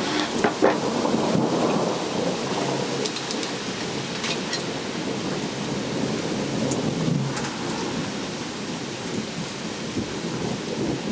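Steady rain during a thunderstorm, with thunder rumbling, loudest in the first two seconds and swelling again around seven seconds in. A few short sharp ticks of drops sound here and there.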